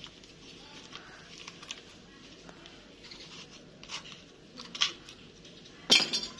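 Newspaper wrapping crinkling and tearing as it is cut open with scissors: scattered sharp snips and rips over rustling paper, the loudest about six seconds in.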